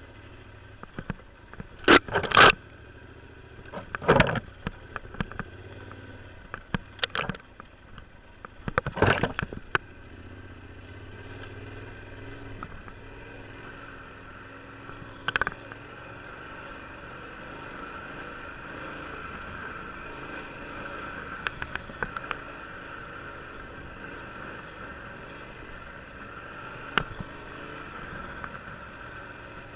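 Yamaha Super Ténéré parallel-twin motorcycle engine running at low speed off-road, with a series of loud knocks and thumps during the first ten seconds as it works through thick brush, then a steadier drone with a couple of single knocks later.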